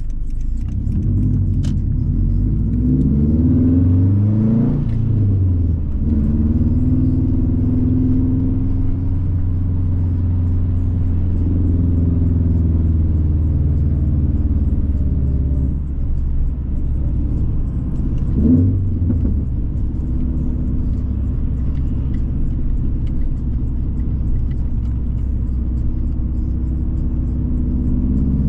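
2011 Subaru WRX's turbocharged flat-four engine running while driving, its pitch rising and falling with the throttle a few seconds in and again briefly about two-thirds of the way through.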